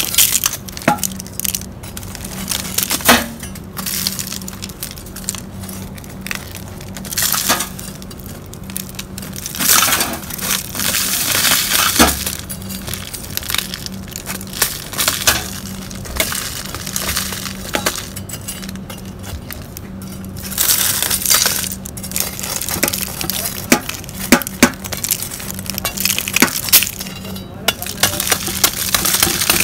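A hardened rock-salt crust being cracked and peeled off salt-baked pork, in irregular bursts of crunching and crackling, with small salt pieces clicking and clinking onto the foil and tray.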